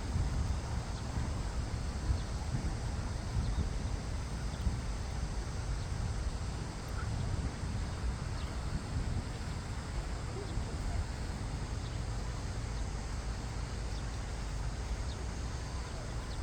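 Wind buffeting the microphone, a steady low rumble over an even outdoor hiss.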